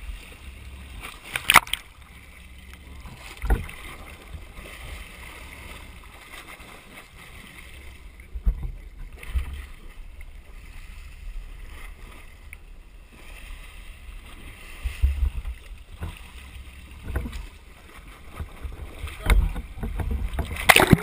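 Boat and water noise heard muffled through a GoPro's waterproof housing: a steady low rumble with scattered knocks and bumps, getting busier near the end.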